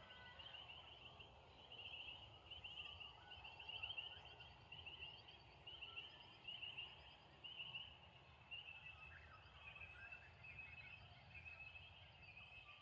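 Faint outdoor chirping: short pulsed trills, high-pitched, repeating about twice a second over a low rumble of background noise.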